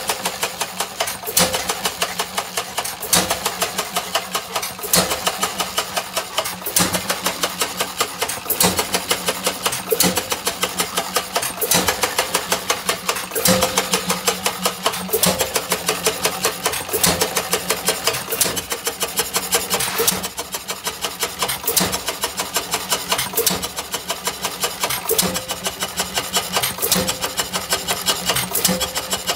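Madison single-cylinder stationary engine running, with a sharp bang about every two seconds over a quick, steady mechanical clatter from its valve gear and flywheel.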